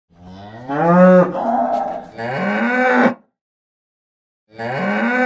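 A cow mooing three times: a long call of about two seconds that rises and then falls in pitch, a shorter call, and a third starting near the end.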